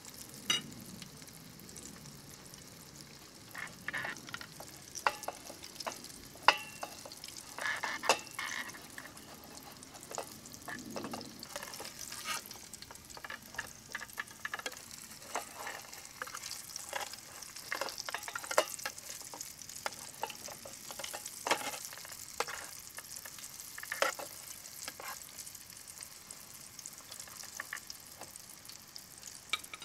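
Flour-and-egg coated pork neck chop deep-frying in peanut oil in an aluminium mess tin: a steady high sizzle, broken by sharp pops and clicks at uneven times.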